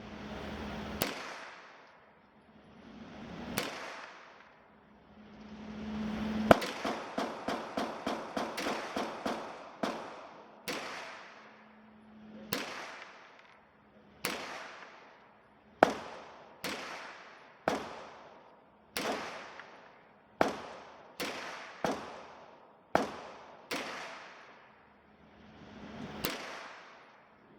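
Aero Precision EPC-9 9mm pistol-caliber carbine firing. It starts with a few spaced shots, then a fast string of about a dozen rounds in roughly three seconds, then steady single shots about one a second.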